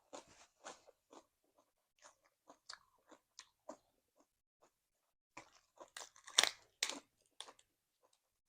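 A person chewing crunchy food, a mouthful of Thai cucumber salad with raw greens, in a run of separate wet crunches; the loudest cluster of bites comes about six to seven seconds in.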